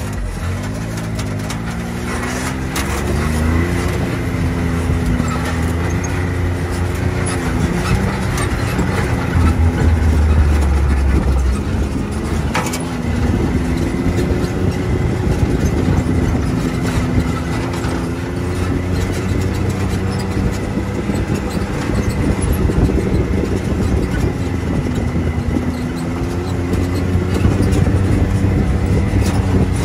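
Can-Am Maverick X3 side-by-side's turbocharged engine running while driving a rough trail, its pitch rising and falling with the throttle. Frequent short knocks and clicks sound over it.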